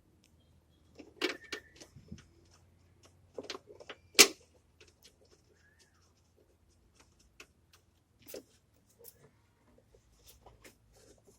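Scattered clicks and knocks of plastic intake parts being handled and pressed into place as the air intake is refitted on a Toyota Tacoma V6, with one sharp knock about four seconds in.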